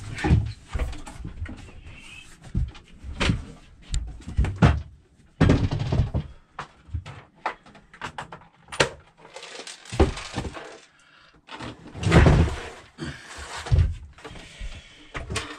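Irregular knocks, thumps and clatter as 12-volt lithium batteries are handled and set down in a wooden battery locker.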